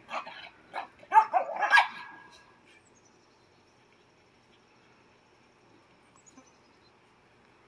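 17-week-old American bully puppies barking: a quick burst of several sharp barks in the first two seconds of play.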